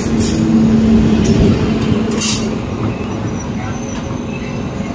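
WAP-7 electric locomotive hauling a passenger train slowly out of a station: a steady hum with the rumble of wheels on the rails, louder in the first second and a half. A brief high hiss comes about two seconds in.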